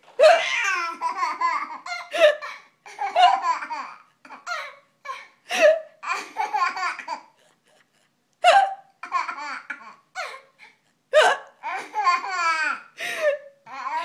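Baby laughing hard in repeated bouts, set off by a woman's sudden hiccups every few seconds.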